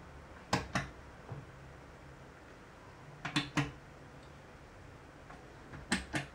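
Metal LED-ring push buttons on a stainless-steel panel clicking as they are pressed, three presses, each giving two quick clicks, as the memorised light sequence is keyed in.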